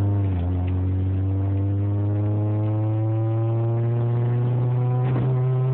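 Honda Prelude's four-cylinder engine under hard acceleration in third gear, heard from inside the cabin, its note climbing slowly and steadily. A short clatter comes about five seconds in.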